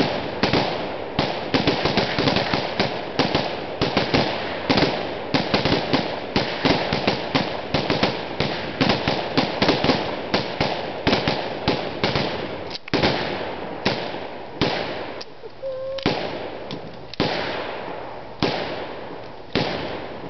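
Several AMD-65 and AK-pattern rifles in 7.62×39 firing rapid semi-automatic at once, the shots overlapping into a dense, uneven volley. After about thirteen seconds the firing thins out to scattered single shots as the shooters stop one by one.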